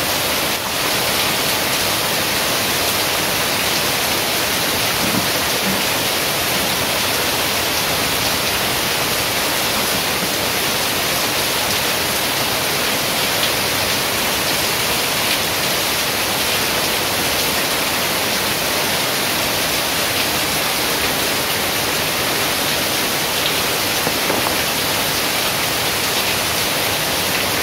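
Heavy rain pouring steadily, a dense, even hiss with no thunder.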